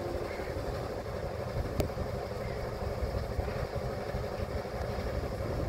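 Small diesel shunting locomotive running with a steady low engine rumble as it moves slowly along the track, with one sharp click about two seconds in.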